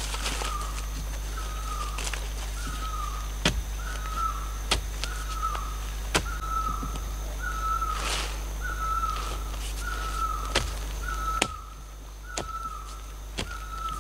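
A bird repeats a short falling call over and over, about once every 0.8 seconds. Irregular sharp knocks come from a sharpened bamboo pole being jabbed into the soil to dig a hole.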